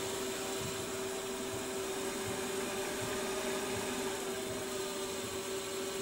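Milling machine motor running with a steady, even hum.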